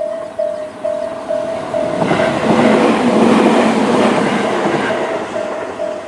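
Railway level-crossing electronic alarm (Tobu-type bell sound) beeping about twice a second. A Tobu 20400-series electric train passes through the crossing, its wheels on the rails swelling into a loud rush about two seconds in and fading after about five seconds.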